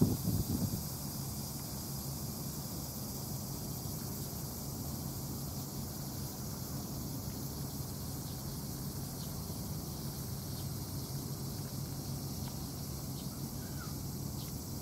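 Steady outdoor ambience: a constant high insect hiss over a low steady hum, with a gust of wind on the microphone in the first second.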